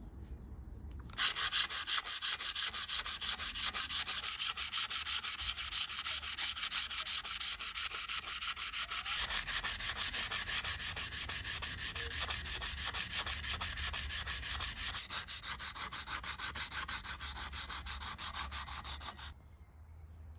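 Fast back-and-forth abrasive rubbing on the steel of antique sheep shears, as the rust is worked off by hand, several strokes a second. It starts about a second in, eases a little in the last few seconds, and stops shortly before the end.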